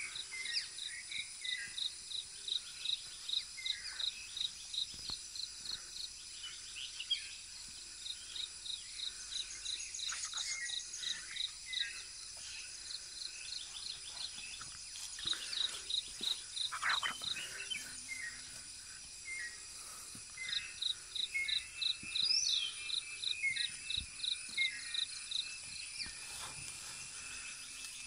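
Forest ambience: a steady high insect drone, with repeated runs of rapid, evenly spaced high chirps, about three or four a second, and scattered short bird calls.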